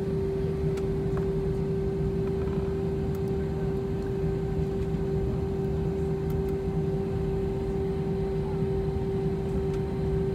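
Steady cabin noise inside an Airbus A320 taxiing, heard from a window seat over the wing. The engines run at taxi power with an even rumble and a constant mid-pitched hum.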